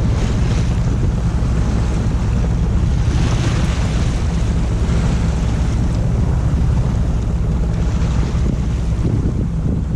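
Small sailing yacht under motor: the engine runs with a steady low drone, beneath heavy wind on the microphone and the rush of sea water.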